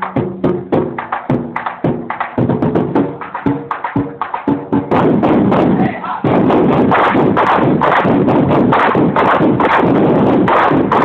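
Ensemble of about two dozen large Thai war drums (klong suek, barrel drums on stands) beaten together. The strokes are separate and rhythmic for the first five seconds or so, then merge into a loud, dense roll from about six seconds in.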